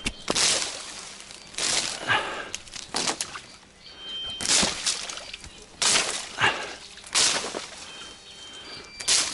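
Reed stems swishing and scraping against an inflatable kayak and the camera as the boat is pushed through a dense reed bed, in repeated rustling sweeps about every second or so.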